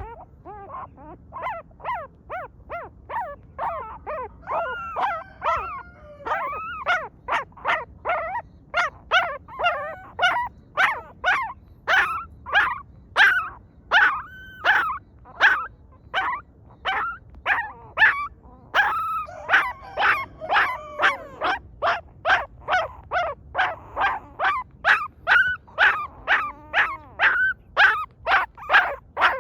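A dog giving short, high-pitched yelps and whimpers over and over, about two a second, softer at first and louder after a few seconds.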